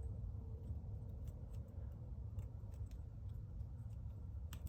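Faint, scattered light clicks and ticks of small transmission parts, a piston and its gasket, being handled and fitted by hand, over a steady low hum.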